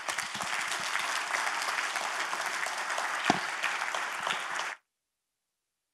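Audience applause, a steady mass of clapping with one sharp louder knock about three seconds in; it cuts off suddenly near the end.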